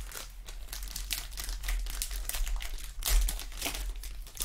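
Foil wrapper of a Donruss Optic football card pack crinkling and crackling as it is torn open, with a sharper crackle about three seconds in.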